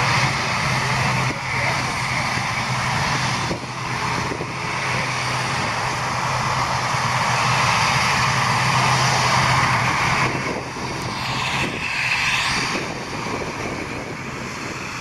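ATR 72-600 turboprop airliner taxiing past at close range, its engines and propellers running with a steady low drone under a broad rushing noise. The drone drops away about ten seconds in and the sound gets a little fainter as the aircraft moves off.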